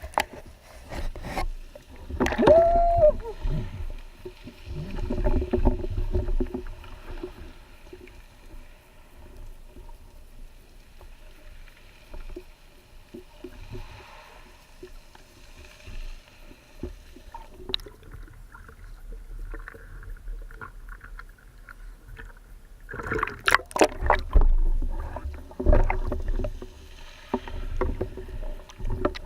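Underwater sound picked up by a spearfisher's camera: a low rush of moving water with scattered clicks and knocks. It is louder a couple of seconds in and again a few seconds before the end.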